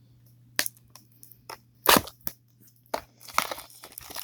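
Cardboard mini box of trading cards being pried open by hand: a few separate sharp cracks and snaps of cardboard, then denser crackling and rustling near the end.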